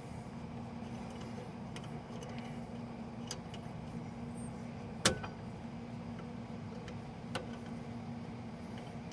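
Light metallic clicks and clinks of brake hardware and tools as a caliper bolt is being fitted, a few sharp taps with one loud click about five seconds in, over a steady low hum.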